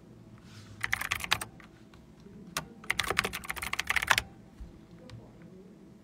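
Typing on a computer keyboard: a quick run of key clicks about a second in, a single key press, then a longer run of clicks around three to four seconds in.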